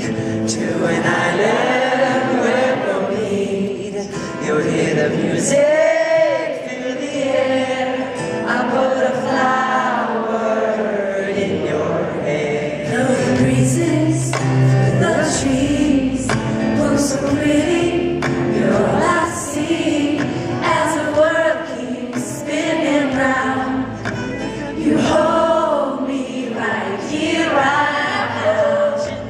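Live acoustic band: male and female voices singing together in harmony around one microphone, over acoustic guitar, cello and upright bass.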